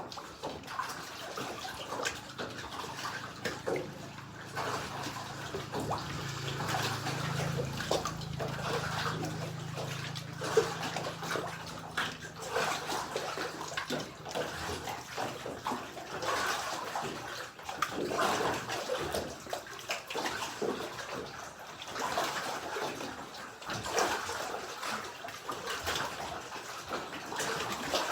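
Water lapping and sloshing in small, irregular splashes. A low steady hum sounds underneath for several seconds in the first half.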